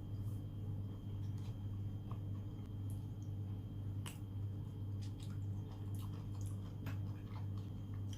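Wet chewing of raw seafood, with soft squishes and sharp mouth clicks scattered through, over a steady low hum.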